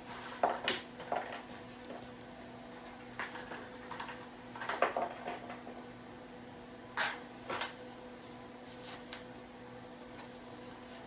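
Scattered clinks and knocks of items and packaging being handled during unboxing, a few seconds apart, over a steady faint hum.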